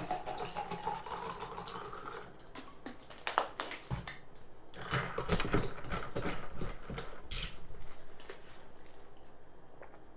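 Close-up eating sounds of a person eating fufu and egusi stew by hand: wet mouth clicks and lip smacks, coming thickest in the middle and thinning out toward the end.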